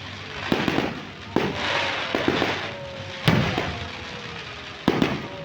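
Aerial fireworks bursting: four sharp bangs, each followed by crackling, the loudest about three seconds in. A thin falling whistle runs through the middle.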